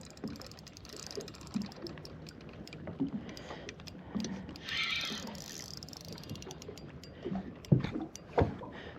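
Faint handling sounds of a fishing rod and reel while a hooked fish is played from a small boat: scattered light knocks and ticks, a brief hiss about five seconds in, and a few sharper clicks near the end.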